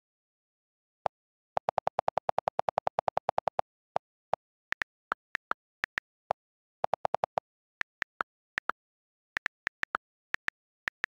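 iPad on-screen keyboard clicks as letters are typed one by one. Two fast runs of lower-pitched clicks, a long one from about a second and a half in and a short one around seven seconds, come from the delete key being held to erase the typed text.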